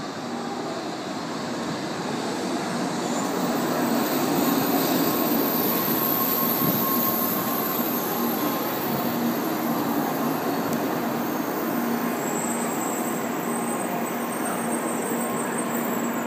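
N700-series Shinkansen train pulling in alongside a station platform, its cars rolling past in a steady rumble and rush of wheels and air, with a faint steady hum on top. The sound grows louder over the first few seconds, then holds.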